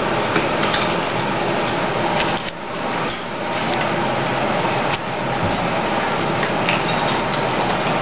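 Eggs frying under a lid in a non-stick pan: a steady sizzle with small crackles and pops.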